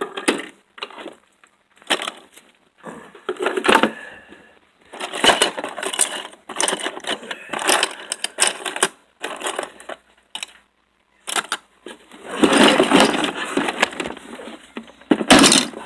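Small metal scrap parts clinking and rattling as they are handled and rummaged through, in irregular spells of clatter with a short lull about ten seconds in.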